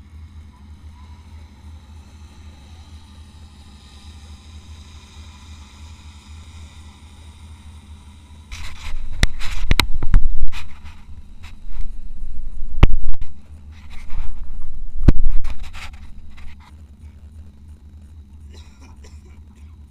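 Off-road race vehicle's engine giving a low, steady drone. About eight seconds in it gives way to roughly eight seconds of loud jolts, scrapes and sharp knocks as the vehicle crashes over rough ground, then settles back to the drone.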